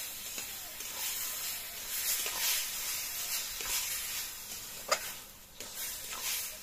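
Bottle gourd and chana dal curry sizzling in a metal karahi while a metal spatula stirs and scrapes through it, with a sharp knock of the spatula against the pan about five seconds in.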